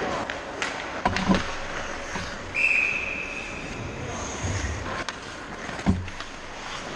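Ice hockey play at the goal crease, heard from the net: skate blades scraping the ice with sharp clacks of sticks and puck about a second in. A short high steady tone comes in around two and a half seconds, and a heavy thump near the end as the goalie's pads go down against the net.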